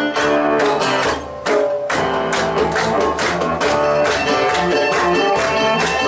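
Live folk band playing an instrumental passage: fiddle over strummed acoustic guitar, with djembe, cello and drum kit keeping a steady beat. The music drops away briefly about a second in, then comes back in full.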